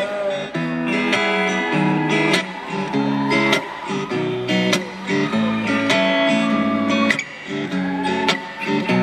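Steel-string acoustic guitar strummed in a steady rhythm, played solo and amplified on a live stage.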